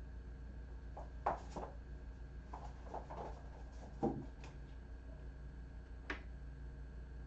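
A few scattered taps and knocks of kittens moving about the room, the loudest two about a second in and about four seconds in, and a sharp click near the end, over a steady low hum.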